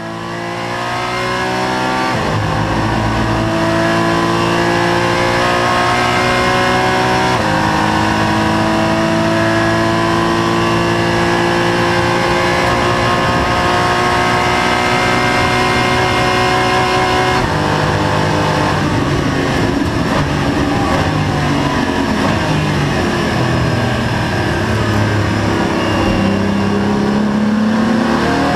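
Porsche Cayman GT4 Clubsport's flat-six engine heard from inside the cockpit, fading in at the start. The revs climb steadily through the gears, with upshifts about two, seven and seventeen seconds in; after that the revs run lower and uneven before rising again near the end.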